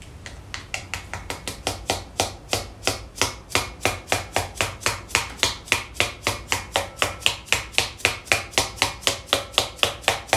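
Soft-faced mallet tapping over and over on the centre of a front brake rotor's hub, about four light blows a second, each a sharp click.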